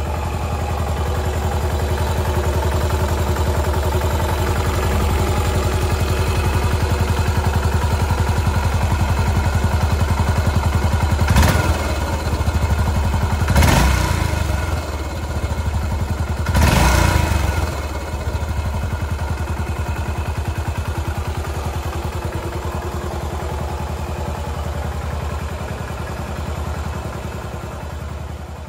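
Yamaha SR400's air-cooled single-cylinder four-stroke engine idling steadily, blipped three times around the middle, each rev rising quickly and dropping back to idle.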